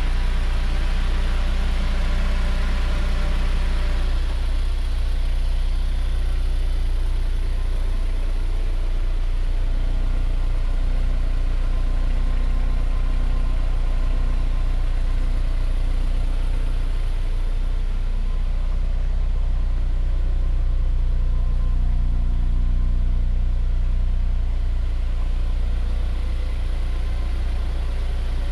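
A steady low mechanical hum that does not change, with a faint hiss above it.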